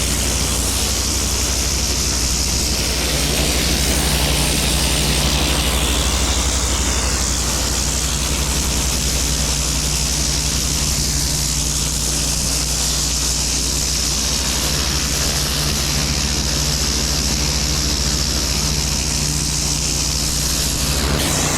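Hotsy 8-gallon-per-minute hot-water pressure washer running steadily, a low engine hum under the loud hiss of the turbo-nozzle spray blasting moss from paver cracks.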